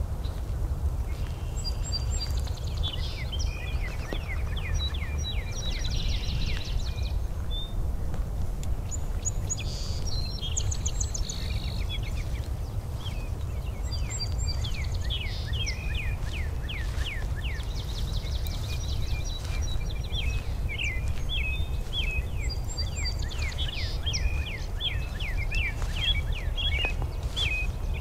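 Several songbirds singing in repeated bursts of quick chirping phrases, over a steady low rumble.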